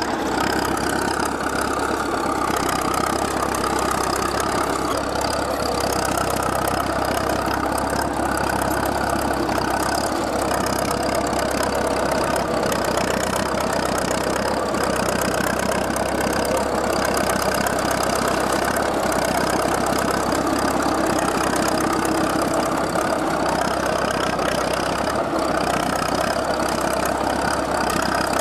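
International Harvester TD-40 crawler's four-cylinder diesel engine running steadily under load while pulling a plow, with a constant clatter of machinery mixed in.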